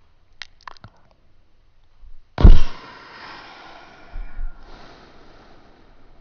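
A person imitating ocean waves with their mouth: a few small mouth clicks, then about two and a half seconds in a sudden loud breathy rush with a thump of breath on the microphone, fading into a long hiss, and a second, softer hissing wash starting near the end.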